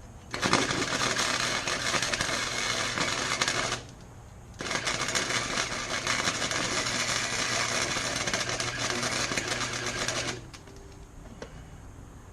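Harbor Freight wire-feed welder arc crackling and sizzling as it lays two weld beads: a run of about three seconds, then after a short pause one of about six seconds, each cutting off abruptly, with a low hum from the welder while the arc burns.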